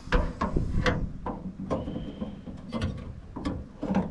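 Irregular clicks and knocks of plastic and metal as a replacement Ford F-150 tailgate handle is handled and fitted into the tailgate.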